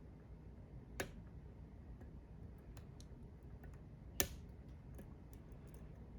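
Small metallic ticks of a lock pick and tension wrench working the pins of a Goal S lock, with two sharper clicks about a second in and about four seconds in, the second the loudest.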